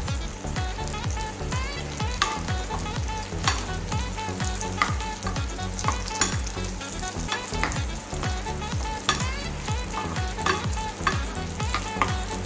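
Cashew nuts and raisins sizzling as they fry in ghee in a small nonstick pan, with a spoon stirring them in repeated scrapes and light knocks against the pan.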